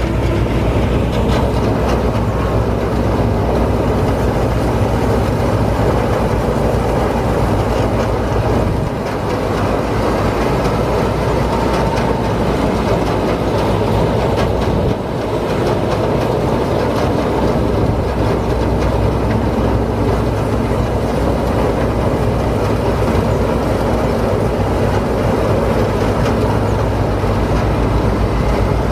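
Combine harvester running steadily while harvesting rice, its engine note joined by a continuous mechanical clatter; the sound briefly drops in level about nine seconds in and again about fifteen seconds in.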